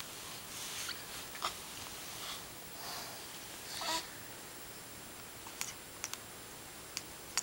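Soft breathy puffs and small mouth sounds close to the microphone, with a brief squeak just before four seconds in, then a few small smacking clicks of kisses on a newborn baby from about five and a half seconds on.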